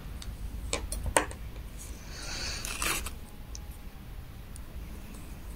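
Hands working yarn and a crochet hook: two light clicks about a second in, then a brief rustle near the middle.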